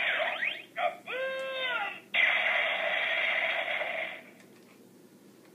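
Gaburevolver toy gun's small speaker playing its electronic henshin sound effects and voice audio, thin and tinny. A brief tone that swoops up and back down comes about a second in, then a steady electronic sound that stops about four seconds in.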